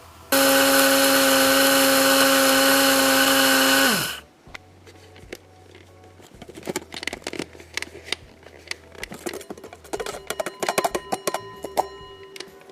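Hamilton Beach 80393 electric blade coffee grinder running loud and steady for about four seconds as it grinds beans, then winding down in pitch as it shuts off automatically. Quieter scattered clicks and rattles follow.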